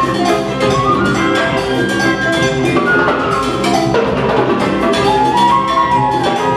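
Live jazz band playing, with a concert flute carrying the melody over electric bass, drum kit and percussion keeping a steady beat.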